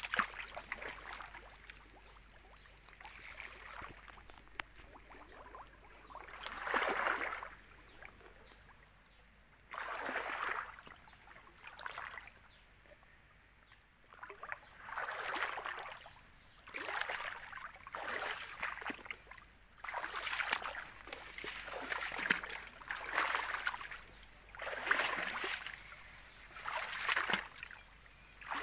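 Slow wading steps through a shallow stream, each one a sloshing splash, coming about every one and a half to two seconds through the second half after a few spaced-out ones early on.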